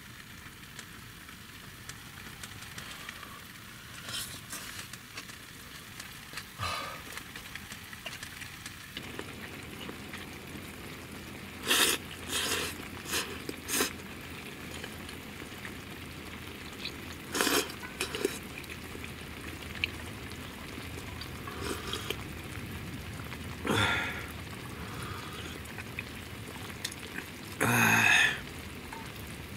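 A person slurping noodles from a steel bowl: several short, loud slurps in a row about twelve seconds in, more a few seconds later, and a longer one near the end, over a steady hiss.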